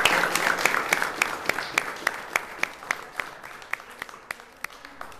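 Audience applauding. The full applause thins out within the first second or so, leaving sparse, steady claps at about three a second.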